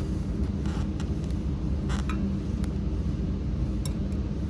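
Steady low hum of running machinery, with a few faint clicks.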